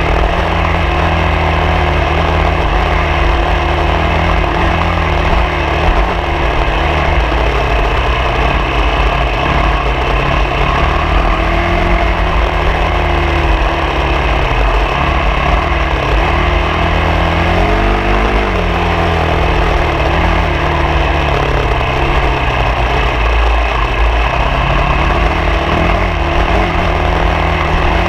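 A vehicle engine running steadily while driving off road, its pitch rising and falling gently with the throttle, over a constant rushing noise.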